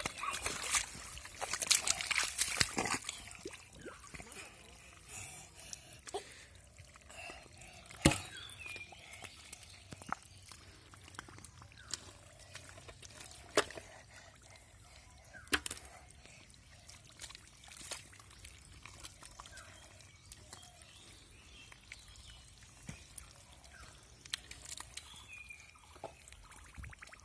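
Hands squelching and sloshing through wet, watery pond mud, with trickling water and irregular sharp slaps and smacks.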